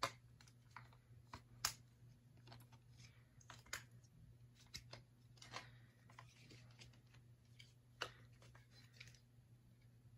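Faint, scattered clicks and snaps of hard plastic toy parts being handled and shifted, over a steady low hum: the T-Rex Champion Zord toy being transformed back into its T-Rex form.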